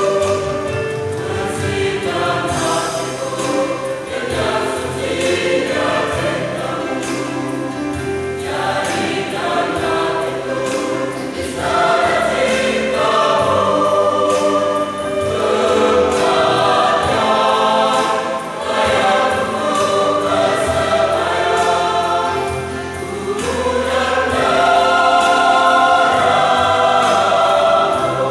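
A choir singing a sacred song in several voice parts, with long held notes. It grows louder for the last few seconds.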